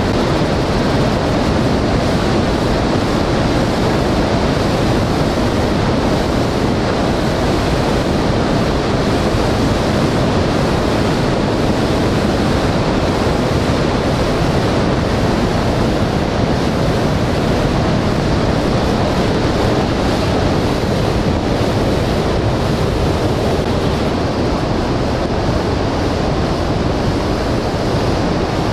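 Loud, steady rush of the South Fork Merced River in flood, its whitewater pouring through the rocks.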